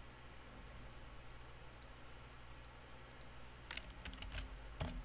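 Light, scattered clicks, a few faint ones about halfway through, then a quick, louder run of clicks near the end, over a faint low hum.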